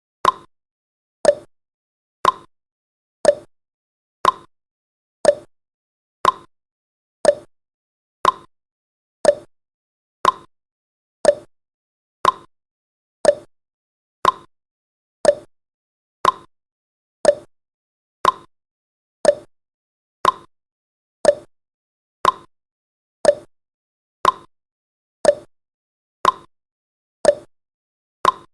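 Countdown timer's tick-tock sound effect: one short tick every second, alternating between a lower and a higher tick.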